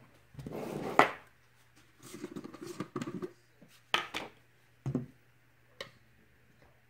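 Utensil scraping and tapping against plastic tubs as solid coconut oil is scooped out. There are two rough scraping stretches and several sharp clicks.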